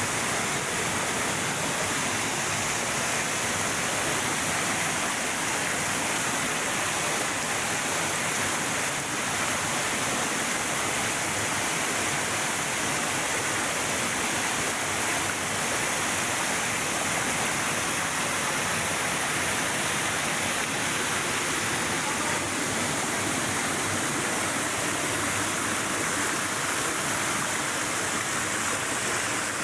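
Steady rush of falling and flowing water, an even unbroken hiss with no change in level.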